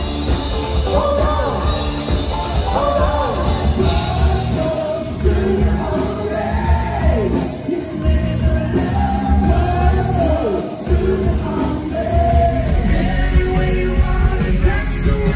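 Rock band playing live with a lead singer, the sound of a large room around it. The recording changes abruptly about four seconds in and again around thirteen seconds in.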